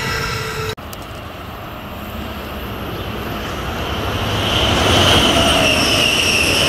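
SBB ICN tilting electric train (RABDe 500) approaching and passing at speed: a rising rush of wheels on rail and air, with a high electric whine growing louder from about four seconds in. Before it, the fading whine of a departing FLIRT regional train cuts off abruptly under a second in.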